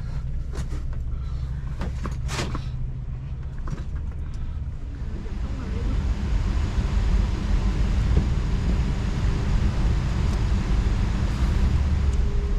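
A car's engine and road noise: a steady low rumble with a few clicks and knocks in the first seconds, growing louder with a rushing sound from about five seconds in as the car gets moving.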